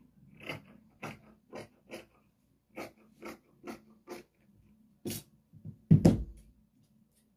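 Fabric shears snipping through abaya fabric in a steady run of short cuts, about two a second, with a louder thump about six seconds in.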